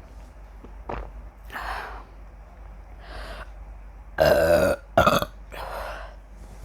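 A woman burping from gulped carbonated cola. Two loud burps come in quick succession about four seconds in, with a softer burp just after and quieter throat sounds before.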